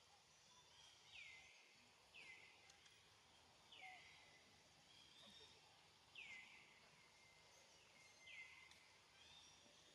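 Faint forest ambience with a high call repeated every second or two, each one a short downward-sweeping note.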